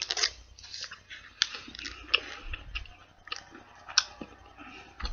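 A person chewing a bite of a chocolate-dipped coconut snack bar with the mouth closed: a run of small, irregular crunchy clicks.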